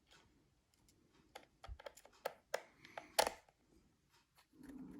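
Small Phillips screwdriver driving tiny screws into the plastic housing of a Ring Video Doorbell Pro: a scattering of light clicks and ticks from tool and case, the loudest just after three seconds in.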